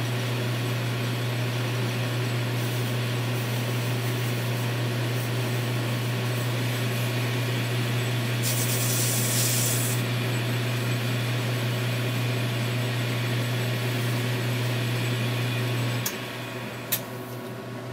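Atlas 10-inch metal lathe running with a steady low hum while the tool takes a light facing cut on a brass bushing, with a brief hiss about halfway through. The lathe is switched off about 16 seconds in, and a single sharp click follows.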